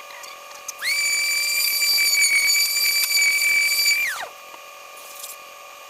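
Power tool spinning a 500-grit sanding pad against a plastic headlight lens. It starts about a second in, runs with a steady high whine for about three seconds, then winds down with a quickly falling pitch.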